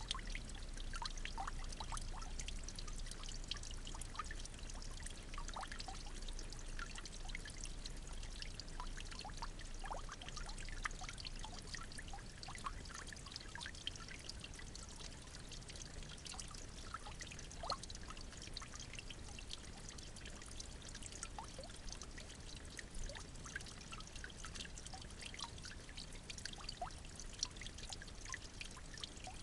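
Steady trickle of running water, with many small scattered ticks and drips.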